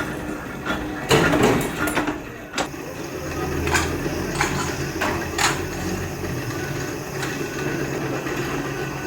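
A workshop machine's motor running with a steady low hum, with scattered sharp metal knocks and clanks over it.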